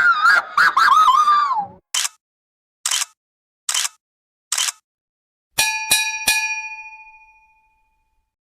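Edited cartoon sound effects: a wobbling, whistle-like tone, then four short swishes about a second apart, then three quick bell-like dings that ring out and fade.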